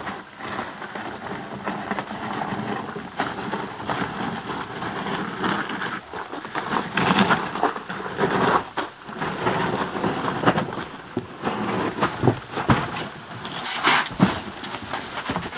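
A large cardboard box being carried and manhandled: cardboard scraping, rustling and bumping, with frequent sharp knocks and crackles, several loud ones in the second half.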